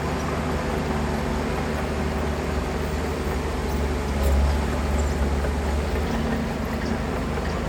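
Heavy diesel earthmoving machinery running steadily, a deep engine sound that swells briefly about four seconds in.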